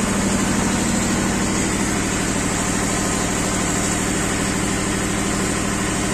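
An engine idling steadily with an even, regular throb.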